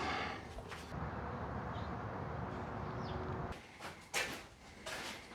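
A steady rushing, scraping noise for about three and a half seconds, then several short knocks.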